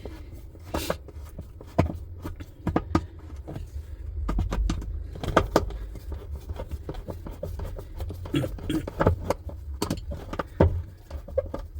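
Irregular clicks, scrapes and knocks of a screwdriver and hands working at the screw that holds a twin-tub washing machine's agitator disc, over a low rumble of handling noise.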